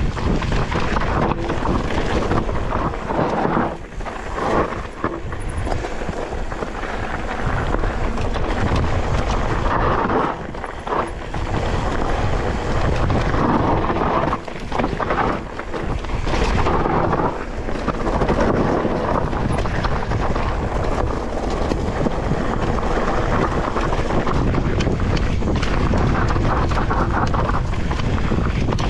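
Wind buffeting an action camera's microphone while a mountain bike is ridden fast down a trail, with a constant clatter of the bike and its tyres over rough ground.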